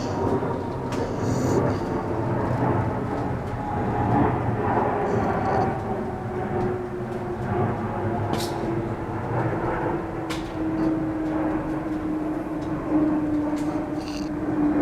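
Snoring: a steady rough rumble that swells and eases, with a held low tone coming in about halfway through.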